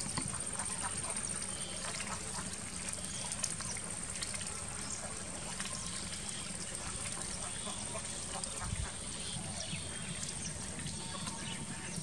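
Domestic ducks dabbling for food in shallow muddy water: scattered small wet clicks and splashes over a steady outdoor background, with a thin steady high-pitched whine.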